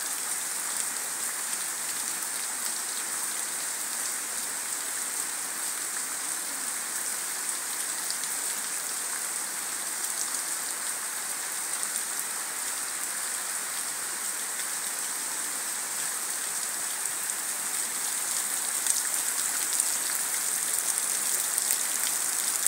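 Heavy tropical downpour: a steady, dense hiss of rain falling on trees and a flooded dirt yard, swelling a little louder near the end.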